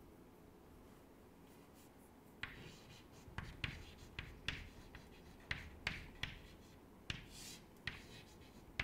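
Chalk writing on a chalkboard, faint. After a couple of seconds of quiet comes a run of short scratchy strokes and light taps as letters are formed.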